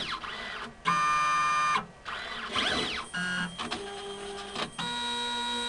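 Motors of an automated pipetting robot moving its arm and syringe: a series of electric whines, some rising and falling in pitch as a move speeds up and slows down, others held steady for about a second, with short pauses between moves.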